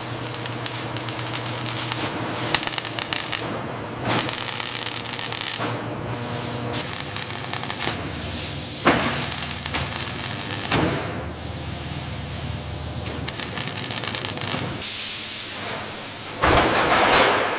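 Industrial factory ambience: steady hissing over a low machine hum, broken every few seconds by a sudden loud hit or swoosh.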